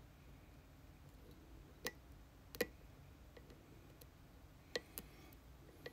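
Four small sharp clicks, unevenly spaced, as a lock is picked: the pick and tension tool working inside the lock.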